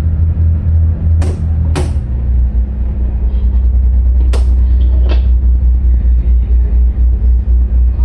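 Marine diesel engine of a harbour assist boat running with a heavy low drone, heard from the wheelhouse as the engine-control lever is worked; about two seconds in the engine note changes to a steady rhythmic throb. Four sharp knocks come in the first five seconds.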